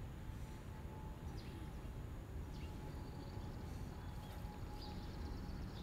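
Quiet outdoor ambience: a low steady background rumble with a few faint, short, high bird chirps scattered through it.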